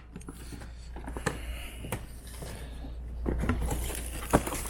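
Cardboard sneaker boxes being handled and set down one after another, giving a few scattered knocks and taps, the sharpest about four seconds in.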